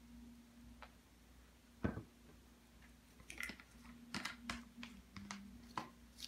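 Handling noise from the phone that is recording: one sharp knock about two seconds in, then a quick run of light clicks and knocks over the last three seconds as the phone is picked up and moved, over a faint steady hum.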